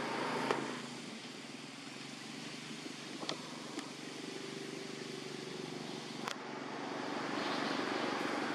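Steady outdoor background rumble with a low hum, broken by a few sharp clicks: one about half a second in, two near the middle and one about six seconds in.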